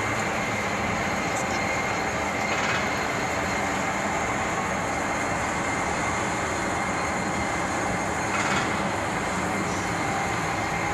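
Railway turntable turning with a steam locomotive and tender aboard: a steady mechanical running noise with a thin, steady high whine. There are two brief louder swells, about two and a half and eight and a half seconds in.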